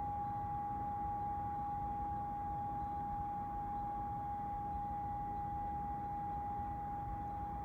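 Heating system exhaust howling: one steady high tone with fainter tones above and below it, over a low rumble, unchanging throughout.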